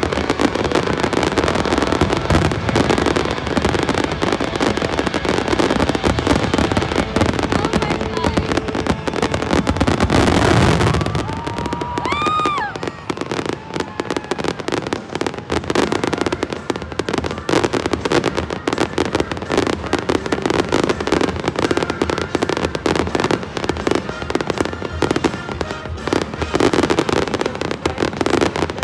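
Dense fireworks barrage: a rapid, unbroken stream of bangs and crackling from many shells bursting at once. A whistling firework rises in pitch about twelve seconds in. The barrage cuts off abruptly at the very end.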